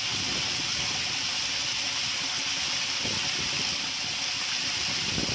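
A stream of water pouring from a tank inlet pipe and splashing steadily onto the water surface inside a storage tank as it fills.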